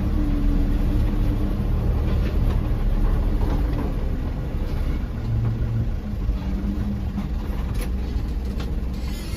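Dump truck's diesel engine running at low revs, heard from inside the cab as the truck creeps down a steep dirt road. The steady low hum eases off a little over the seconds.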